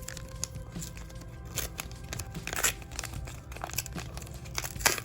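A foil trading-card booster pack being torn open and crinkled in the hands, in several short crackly rustles, over quiet background music.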